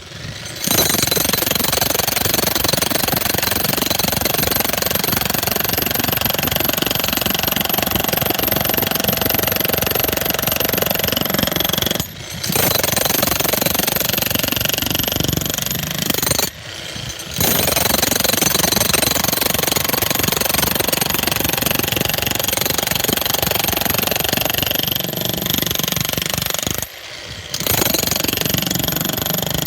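Bauer 35-pound electric demolition jackhammer hammering steadily into a concrete pad, stopping briefly three times before starting up again.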